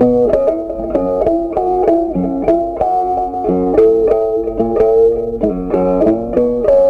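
Background music: a melody of quick plucked string notes over a steady beat.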